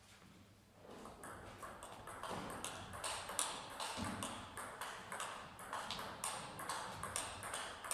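Table tennis rally: the ball clicking off the players' paddles and the table in a quick run of sharp ticks, about three a second, starting about a second in.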